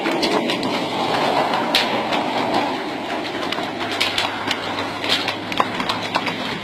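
Many horses walking on an asphalt road, their hooves making a continuous uneven clip-clop over a steady outdoor noise; a low steady hum comes in about halfway through.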